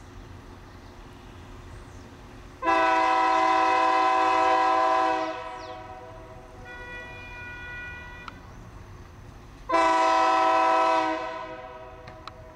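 Diesel freight locomotive's multi-chime air horn sounding two long blasts for a level crossing, the first about two and a half seconds long and the second shorter, over a low rumble from the approaching train.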